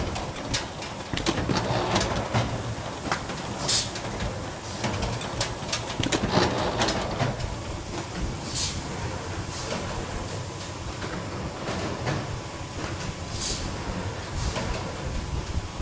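Automatic sponge-board feeding machine running: a steady clatter from its conveyor belts and rollers, with scattered clicks and knocks and a short sharp hiss roughly every five seconds.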